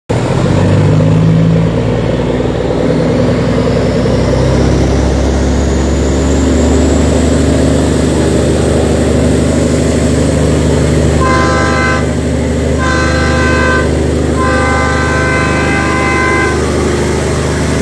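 An 829 hp Yanmar marine diesel engine of a riverboat running loud and steady, with a faint whine rising in pitch over the first several seconds. A horn blows three times starting about eleven seconds in, the third blast the longest.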